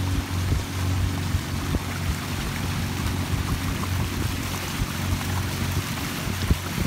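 Outboard motor running steadily, pushing a small aluminium boat along at cruising speed, with the hiss of water and wind along the hull and a few light knocks.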